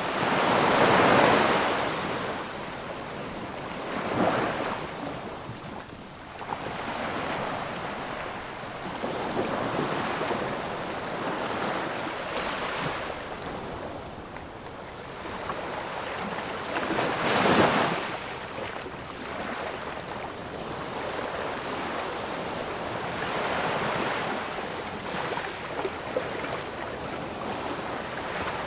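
Ocean waves breaking and washing up a shore in slow, irregular surges. The biggest breaks come about a second in and again a little past the middle, with smaller swells between.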